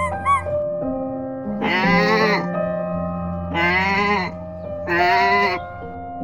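Sheep bleating three times, each call wavering and under a second long, over steady background music.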